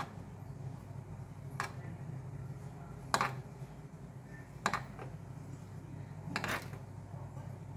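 Metal spoon clinking against a granite-coated nonstick pan as it scoops hot sugar syrup, about five light clinks a second or two apart, over a steady low hum.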